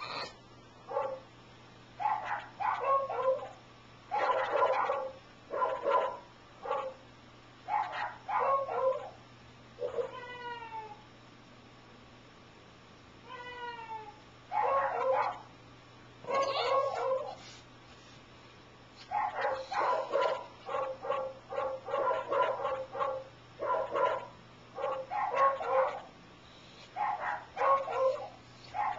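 French bulldog giving weird, yowling, meow-like barks in repeated short bursts, with two longer calls that fall in pitch around the middle.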